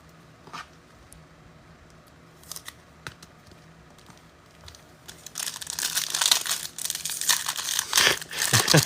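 A few faint clicks, then from about five seconds in the wrapper of a trading card pack crinkling and tearing as it is opened.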